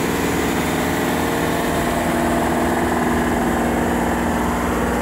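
Mitsubishi Shogun engine idling steadily during a hydrogen carbon clean, with the cleaning machine feeding gas into its intake.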